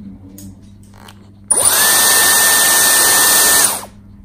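Handheld hairdryer switched on about one and a half seconds in: its motor whine climbs quickly to a steady pitch over a loud rush of air, then it is switched off about two seconds later and winds down.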